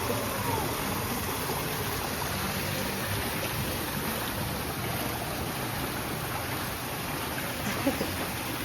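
Steady rush of running and splashing water, an even hiss with no breaks.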